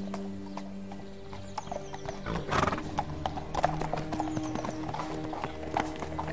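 Horses' hooves clip-clopping at a walk on stone paving, over a soft orchestral score with long held notes. A short, louder noisy burst comes about two and a half seconds in.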